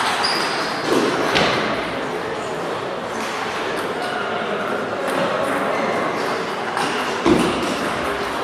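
Table tennis balls clicking off bats and tables in a large, echoing hall, a few sharp knocks over a steady murmur of voices.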